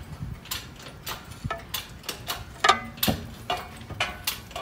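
Irregular metallic clicks and clinks, a few a second, from a lifting chain and hoist as a car engine is raised out of its bay.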